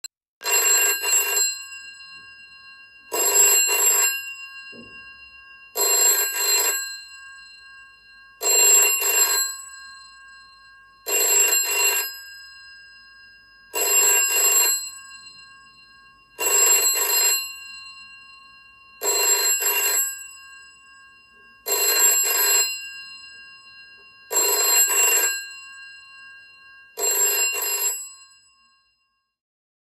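An old-style telephone bell ringing: eleven rings of about a second each, spaced roughly two and a half seconds apart, each trailing off as the bell rings on.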